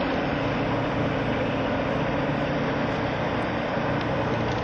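Steady drone of a boat engine, with a rushing noise over it. A brief click right at the start.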